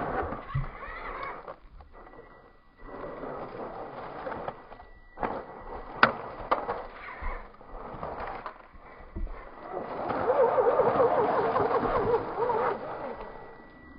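Electric motor and gear drivetrain of a scale RC rock crawler whining as it crawls through snow and ice, rising and dropping with the throttle, loudest again from about ten seconds in. A single sharp click about six seconds in.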